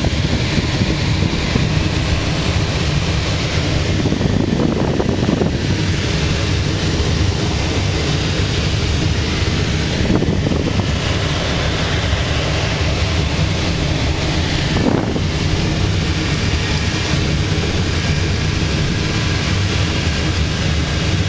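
Steady rush of airflow around the cockpit of a Schleicher ASK 21 glider in flight, with no engine running; the rushing swells briefly a few times.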